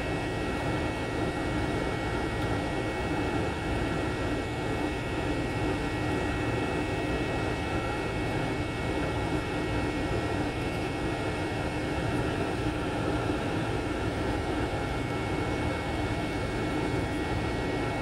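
Jet airliner in flight, heard from inside the passenger cabin: a steady rush of engine and air noise with a few high steady whining tones over it.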